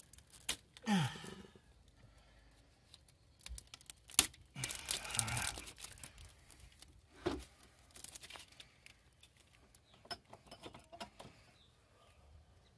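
Plastic wiring-harness tabs and corrugated loom being pried and pulled loose by hand: scattered clicks and snaps, the sharpest about four seconds in, with a longer rustle of plastic just after.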